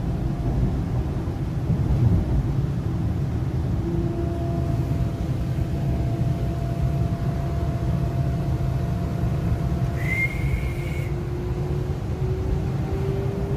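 MTR East Rail Line R-Train electric multiple unit running, heard from inside the car: a steady low rumble of the wheels on the track with a faint motor whine that rises slowly in pitch near the end. About ten seconds in there is a brief high whistle-like squeal lasting about a second.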